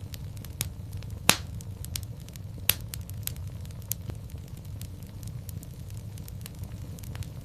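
Wood fire in a fireplace crackling: scattered small clicks over a low steady rumble, with two louder pops about a second in and near three seconds in.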